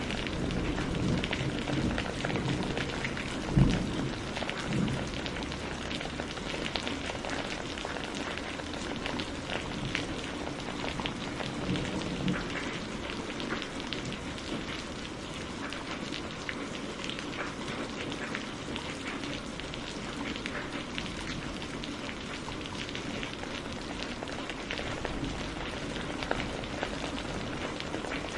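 Steady heavy rain, with dense ticks of individual drops. A low thunder rumble runs through the first few seconds, with a sharp clap about three and a half seconds in.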